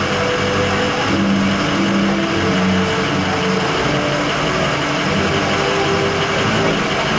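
Pickup truck engines idling close by: a steady running sound with a low hum.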